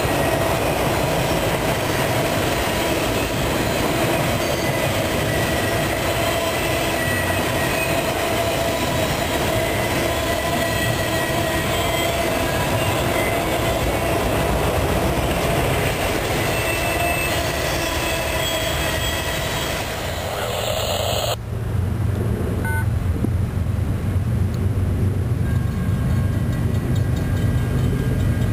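Freight train of autorack cars rolling past close by: a steady rumble of steel wheels on rail with thin, steady squealing tones above it. About 21 seconds in it cuts off abruptly to a lower, steady rumble from a diesel locomotive approaching in the distance.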